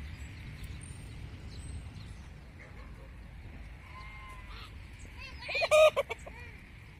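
A hen squawks loudly once, briefly, near the end, over faint high chirping of small birds and a steady low outdoor background.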